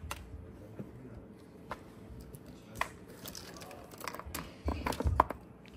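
Scattered soft clicks and knocks of small plastic toy game pieces being handled, with a brief cluster of louder knocks near the end.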